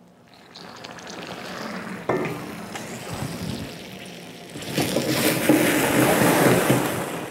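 Pan of bananas Foster (bananas in melted butter, brown sugar and spiced rum) sizzling loudly while it is flambéed. The hiss builds, growing louder about four and a half seconds in.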